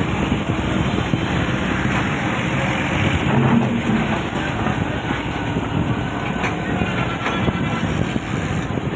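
Doosan excavator's diesel engine running steadily under load as it digs, with its hydraulics working and a faint high whine coming in partway through.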